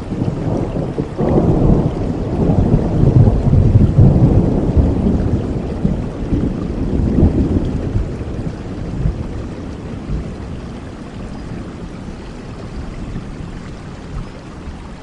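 Thunder rumbling over steady rain: a long low roll builds about a second in, swells a second time, then dies away, leaving the even hiss of the rain.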